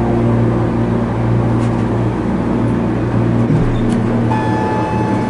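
Montgomery hydraulic elevator running, heard from inside the car: a steady mechanical hum with a low rumble that drops away about three and a half seconds in. A faint steady whine starts shortly after.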